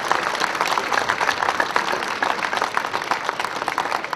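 Crowd applauding, many hands clapping at once in a dense, steady patter.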